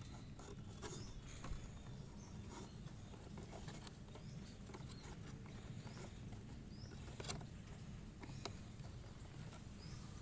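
Faint, scattered light taps and scrapes of cardboard pieces being handled and fitted together by hand, over a low steady background hum, with a few faint high chirps.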